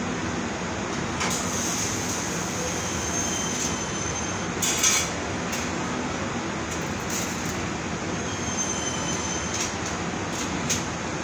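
Steady din of a welding and fabrication shop floor, with machinery and ventilation running. Sharp metal clanks and clicks sound over it, the loudest a clank about five seconds in.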